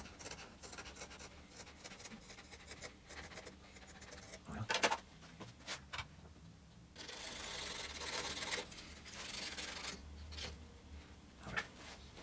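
Scissors snipping through the stiff, resin-hardened glass fibres of chopped strand mat that stick out from the edge of a cured polyester laminate, in many short crisp cuts, loudest in a quick cluster about halfway through. A longer stretch of rubbing and scraping against the laminate follows about two thirds of the way in.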